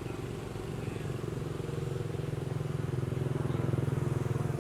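A motor vehicle's engine running with a steady low pulsing, growing louder about halfway through and easing slightly near the end.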